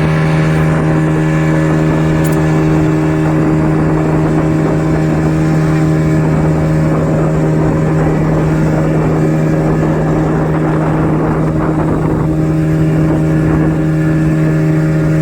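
Speedboat engine running steadily at speed: one constant, unchanging hum under a dense rushing noise.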